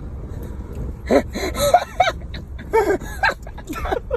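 A person laughing in short gasping, wheezing bursts, over the steady low rumble of a car cabin.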